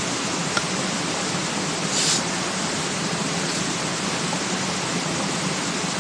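Steady rushing noise throughout, with a short high hiss about two seconds in.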